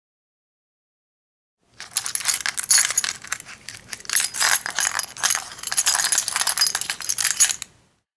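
A bunch of metal keys jangling, shaken and handled in uneven waves of rapid clinks for about six seconds. It starts after nearly two seconds of silence and stops just before the end.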